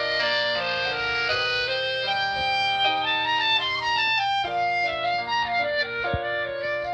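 Instrumental background music: a melody of short pitched notes over sustained accompaniment at a steady level.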